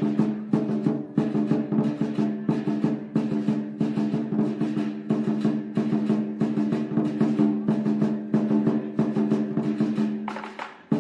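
Asian drums beaten in a fast, continuous roll, with a deep ringing drum tone under the rapid strikes, dying away near the end.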